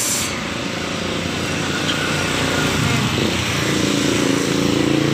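A motor vehicle engine runs close by over a steady wash of noise, its hum growing louder toward the end.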